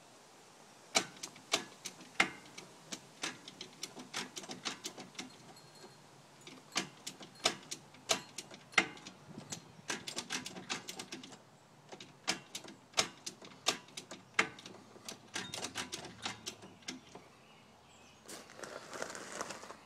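Sharp mechanical clicks of a go-kart gear shifter being worked over and over, in irregular runs of one to several clicks a second, with a brief rustle of handling near the end.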